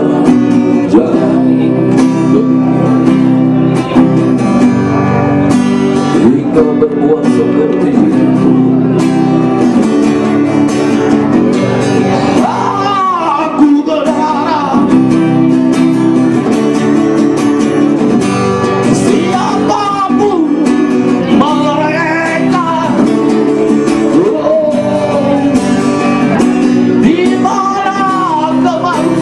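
Acoustic guitar strumming chords, with a voice singing over it.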